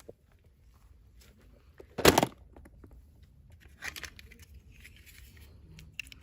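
Toy packaging being handled and opened: one short, loud rip about two seconds in, then softer rustling and a sharp click near the end.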